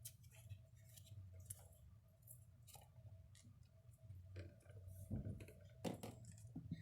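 Near silence with faint, scattered clicks and small handling sounds over a low steady hum. Two slightly louder knocks come near the end.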